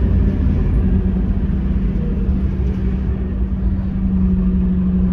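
Inside a Scania K230UB city bus under way: the rear-mounted five-cylinder diesel and road noise make a steady low rumble, with a steady hum running through it.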